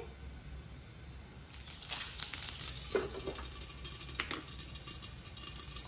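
Mustard and ajwain seeds with a slit green chilli sizzling and crackling in hot oil in a nonstick kadhai, the crackle starting about a second and a half in. A glass lid is set on the pan with a knock or two partway through, to keep the spattering mustard seeds in.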